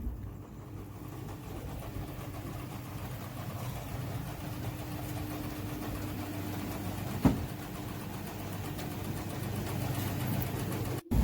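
A machine motor or engine running steadily with a low hum, with a single sharp knock about seven seconds in.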